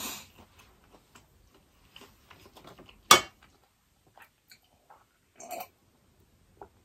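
Quiet table sounds of a meal: faint scattered ticks and small clicks, with one sharp click about three seconds in. A short soft sound at about five and a half seconds comes as red wine is sipped from a glass.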